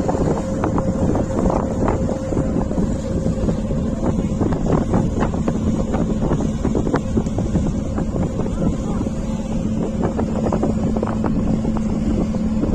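Boat engine running steadily with a constant hum, with wind buffeting the microphone.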